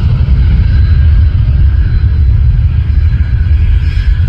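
Airbus A320 jet engines running at high power as the airliner rolls down the runway: a loud, deep, steady rumble with a faint whine above it.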